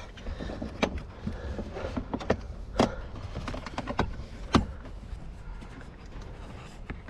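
A handful of scattered sharp clicks and light knocks of plastic and metal as a blend door actuator and hand tools are handled under a truck's dashboard. The loudest clicks come a little before and after the middle.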